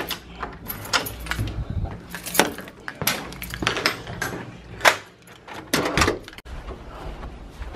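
Metal lever handle and latch of a door clicking as the door is opened, followed by a string of scattered sharp clicks and knocks, the loudest about five seconds in.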